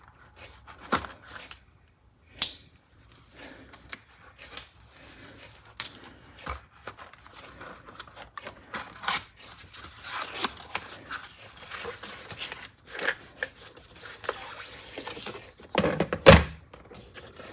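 Packaging of a screwdriver bit kit being opened and handled by hand: scattered rustles, clicks and knocks, with a burst of rustling shortly before a loud knock near the end.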